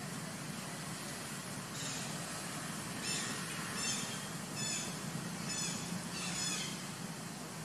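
A run of five or six short, high-pitched animal calls, about one every second, over a steady low hum.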